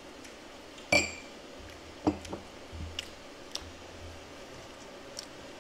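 Close-up eating sounds of someone chewing a bite of Chinese sausage: soft scattered mouth clicks. About a second in, a single sharp clink of tableware rings out, the loudest sound.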